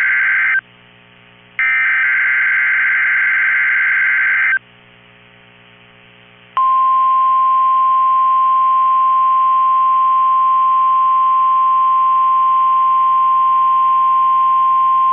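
NOAA Weather Radio Emergency Alert System test: two harsh, buzzing SAME digital header data bursts, the first ending about half a second in and the second running from about 1.5 to 4.5 seconds, with a low hum between them. At about 6.5 seconds the steady single-pitch 1050 Hz warning alarm tone starts and holds for about nine seconds.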